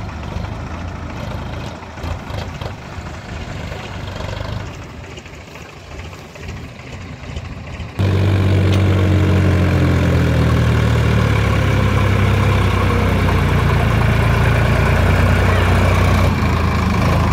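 Sonalika DI-47 RX diesel tractor engine pulling a loaded trolley: fainter and more distant at first, then suddenly loud and close about halfway through, running steadily under load with its pitch dipping briefly just after the jump.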